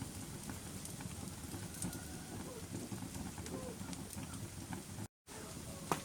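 Wood fire burning, a low steady rumble with scattered crackles and pops, one sharper pop near the end. The sound cuts out completely for a moment about five seconds in.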